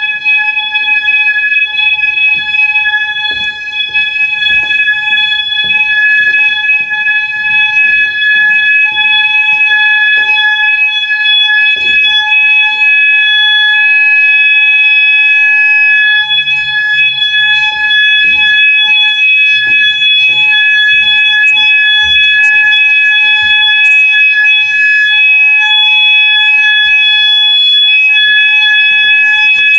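Building fire alarm sounding: one loud, steady, high tone held without a break, with scattered low knocks underneath.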